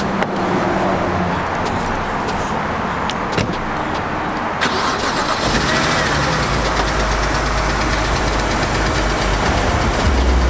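A car engine starts about halfway through and then runs at a steady idle.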